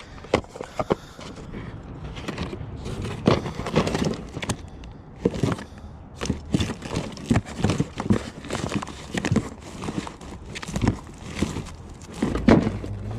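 Small items being handled and rummaged through in a box: irregular rustles, clicks and knocks of things being picked up and set down.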